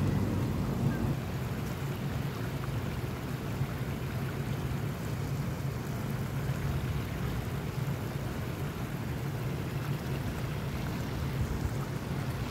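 Steady rushing of a flowing stream, with wind buffeting the microphone.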